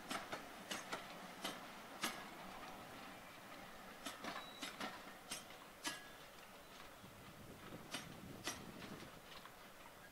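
Wheels of departing railway coaches clicking over rail joints and pointwork in irregular clusters, fading slowly as the train draws away.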